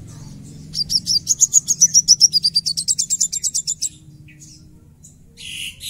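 Caged male sunbird (sogon) singing a fast, dense trill of high notes, about ten a second for some three seconds, then a short chirp or two near the end.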